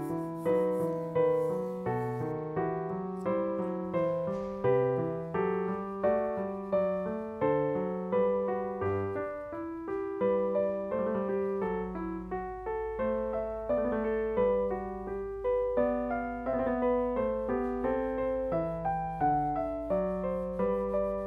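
Background piano music: a slow, even run of notes, each struck and left to fade.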